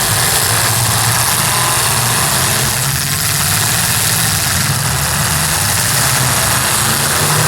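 Demolition derby cars' engines running in a steady low rumble, with no crashes.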